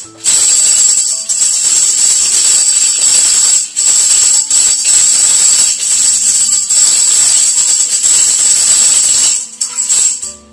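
Small handheld tambourine shaken continuously, its metal jingles ringing, with a couple of brief breaks, then stopping about nine seconds in, with a last short shake. The jingling is the cue to walk like swans, and its stopping is the cue to strike a ballet step.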